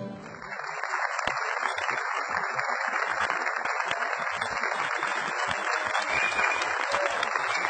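Studio audience applauding steadily at the end of a sung performance, many hands clapping together.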